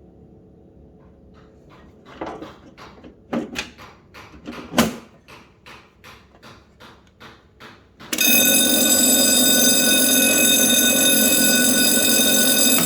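A run of clicks and knocks from handling, then about eight seconds in a standalone electric fire alarm bell, wired without a control panel, starts ringing loudly and steadily.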